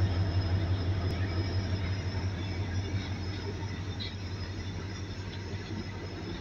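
Loaded freight wagons rolling past at close range on steel rails, over the deep steady drone of a WDG4 diesel-electric locomotive's EMD two-stroke engine, which fades slowly as the locomotive pulls away.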